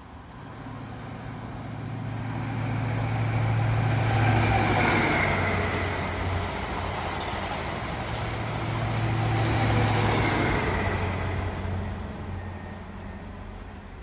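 A vehicle passing by, its noise rising and falling in two swells about five seconds apart, each with a high whine that drops in pitch as it goes past.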